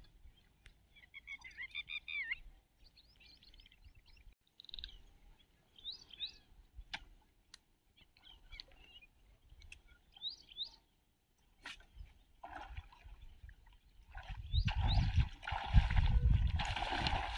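Birds chirping now and then in short rising calls over a quiet marsh. About three-quarters of the way through, a louder rough water sound takes over: splashing and churning in weedy shallows, where a snakehead is attacking a topwater frog lure.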